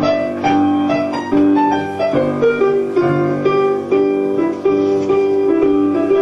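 Piano being played: a run of held notes and chords changing every half second or so.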